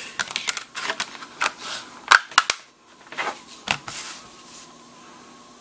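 A Samsung Galaxy Note 3 being closed up by hand: a quick series of sharp plastic clicks and snaps as its back cover is pressed into place over the battery, the loudest a couple of seconds in, stopping about four and a half seconds in.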